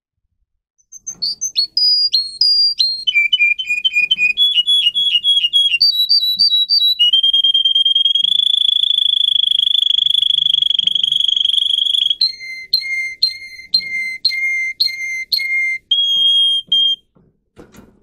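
Domestic canary singing: runs of rapid repeated notes that jump from pitch to pitch, then one long steady whistled note held for about five seconds, then quick notes alternating between two pitches, ending with a short held note.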